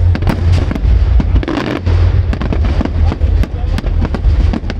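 Fireworks display going off: a rapid string of sharp bangs and crackles over a continuous low rumble.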